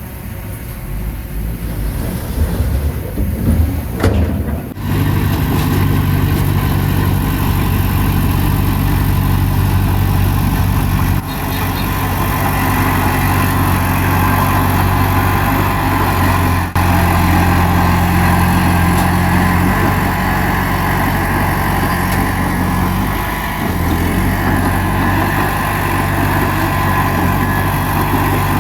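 Heavy earthmoving machine's diesel engine. For the first few seconds there is an irregular clatter with a sharp knock about four seconds in, then the engine settles into steady running.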